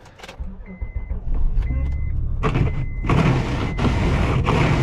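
Vehicle engine rumble starting about half a second in, with a warning chime beeping about once a second. From about three seconds in a loud steady hiss comes over it.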